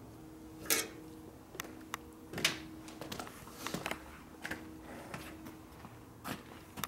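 Scattered light clicks and knocks of hand tools and parts being handled, over a faint steady hum.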